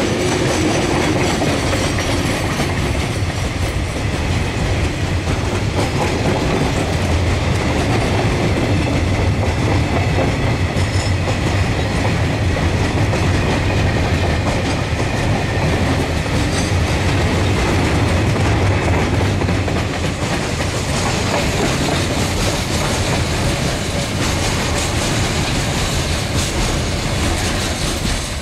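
KiwiRail diesel freight train passing close by. The orange locomotive goes past at the start, then a long run of container wagons rolls by with a steady rumble and the occasional knock of wheels over the rail joints. The rumble eases a little after about twenty seconds.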